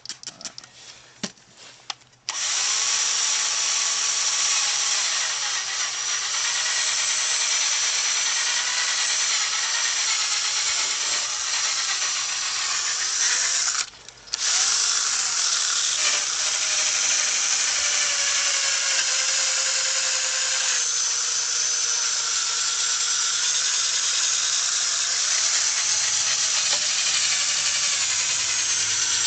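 Power drill spinning a sanding disc against a plastic headlight lens, running steadily with a high whine. It starts after a few light handling clicks, stops briefly about halfway through, then runs on.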